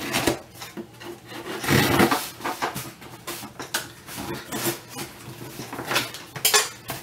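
Cardboard shipping box being cut open: irregular scraping and rasping as the packing tape is sliced, with light knocks of the cardboard being handled.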